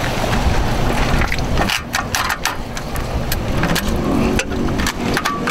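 Retractable rear tie-down strap on a boat trailer being pulled tight against the boat's stern eye, giving a run of irregular sharp clicks and scrapes from about two seconds in, over a steady low rumble.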